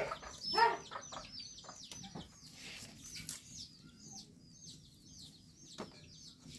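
Domestic chickens clucking, loudest about half a second in, over a steady run of short, high chirps.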